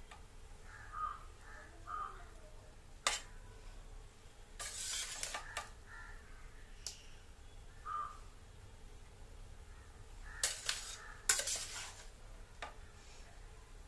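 Utensils clinking and scraping against metal pots as half-boiled rice is scooped from one pot and spread into an open pressure cooker. There are a few sharp clinks, the loudest near the end, and a longer scrape about a third of the way in.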